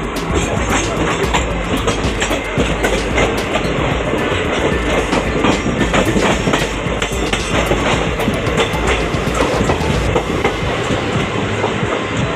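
A train passing at close range on the next track, heard from the open doorway of a moving train: a steady, loud rumble with rapid, irregular clattering of steel wheels over the rails.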